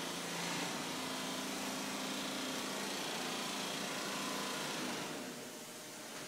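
Mattress-factory production machinery running steadily: an even mechanical hum and hiss with a few held tones, dropping in level about five seconds in.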